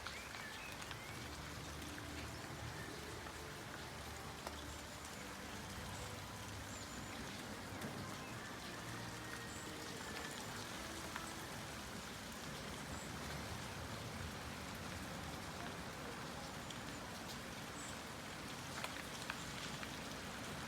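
Steady rain falling, with a few scattered sharp ticks of drops striking.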